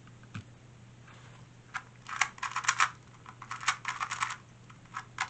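Plastic 2x2 speed cube being turned rapidly during a timed solve: quick clacking turns in two flurries, starting a little under two seconds in and stopping shortly before the end.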